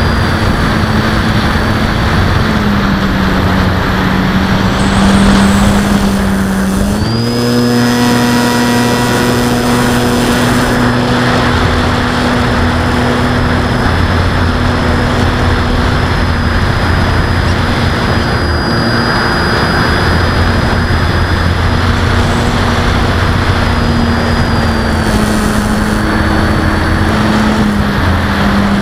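Onboard sound of a Parkzone Sport Cub RC airplane's electric motor and propeller running in flight, a steady buzz with a thin high whine over a rush of wind noise. The pitch dips a few seconds in, rises sharply as the throttle is opened about seven seconds in, and eases down again near the end.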